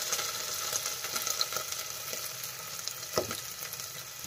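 Chopped onion frying in hot oil with garlic and green chilli in a pot, a steady sizzle with faint crackles. One short knock about three seconds in.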